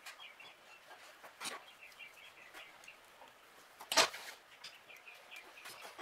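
Sharp clicks and knocks from tools and parts being handled on a workbench, the loudest about four seconds in and a smaller one about a second and a half in. Faint, short, repeated bird chirping runs underneath.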